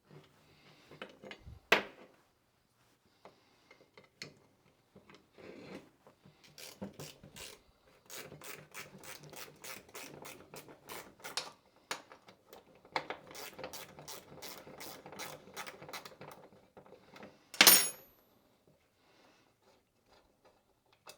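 Hand tools working on the metal parts of an NP203 transfer case shifter while it is taken apart: rubbing and scraping with long runs of quick clicks. Near the end comes one loud, sharp metal clank with a short ring.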